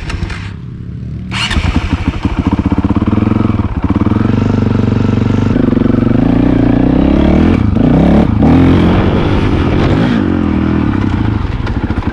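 Dirt bike engine running close by, getting louder about a second and a half in, then revving up and down several times.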